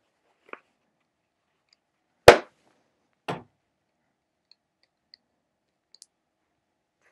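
A few isolated sharp clicks: a loud one about two seconds in, a softer one a second later, and faint ticks near the end.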